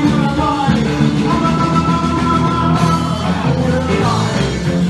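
Live rock and roll band playing: a male singer over electric guitar, electric bass and a drum kit, with sustained sung notes in the middle.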